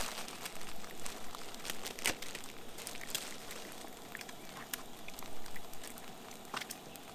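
Plastic food packet crinkling and rustling as it is wrestled and torn open by hand, with irregular sharp crackles.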